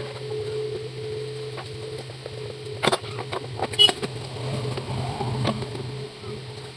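Steady low hum of a table fan's electric motor running, with two sharp clicks or knocks about three and four seconds in.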